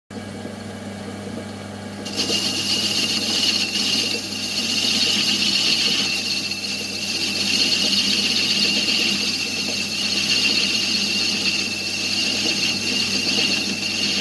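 Fiat Ducato 2.5TD diesel engine running, with its narrow V drive belt setting up a loud, steady high-pitched squeal about two seconds in. The squeal is the belt slipping, which the owner puts down to a worn crankshaft pulley.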